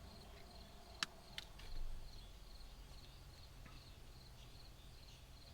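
Faint crickets chirping in a steady, even rhythm, with two sharp small clicks about a second in.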